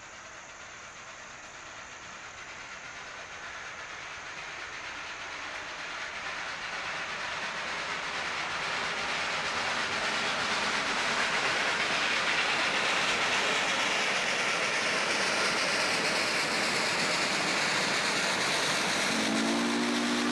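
Steam locomotive approaching unseen: a rushing steam-and-exhaust noise grows louder over about ten seconds and then holds steady. Near the end a chime steam whistle begins to blow, a steady chord of several notes.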